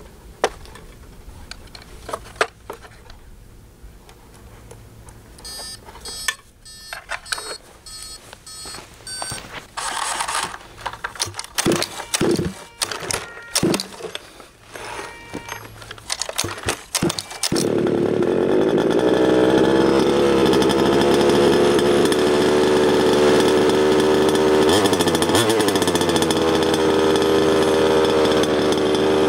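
A 1/5-scale Losi 5T RC truck's 30.5cc Zenoah two-stroke engine is pull-started with clicks and several sharp yanks of the recoil cord. About two-thirds of the way in it catches and settles into a loud, steady idle, with a brief dip in pitch near the end.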